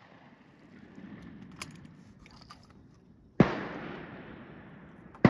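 A shotgun shot about three and a half seconds in, a sharp report followed by a long fading echo across the range. A few faint clicks come before it, and another sharp crack lands at the very end.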